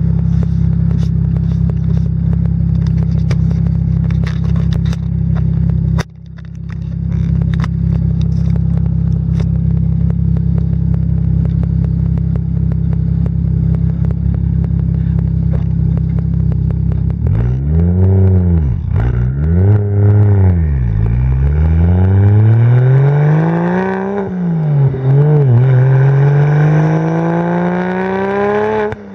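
Single-turbo BMW 335i straight-six through a VRSF exhaust, idling with a steady low drone. From about halfway it is revved in several quick blips that rise and fall, then a longer rev climbs near the end.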